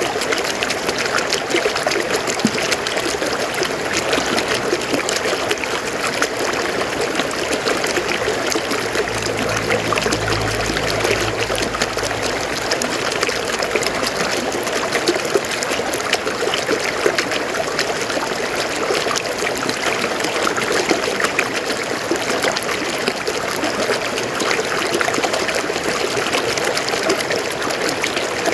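River water flowing over rocks: a steady rushing burble full of small splashes. A low rumble sits underneath for a few seconds, starting about nine seconds in.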